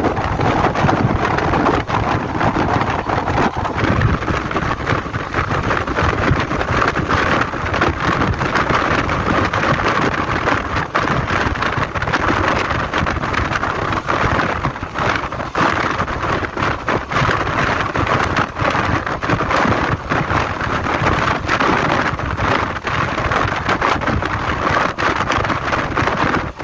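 Passenger express train running at speed, heard from on board: a steady rush of wind and rolling noise, with irregular wheel-on-rail knocks and clatter.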